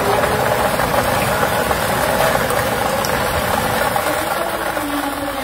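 Air-mix lottery ball machine running: the blower's air rush with plastic lottery balls rattling and clattering against the clear acrylic drum as they are mixed.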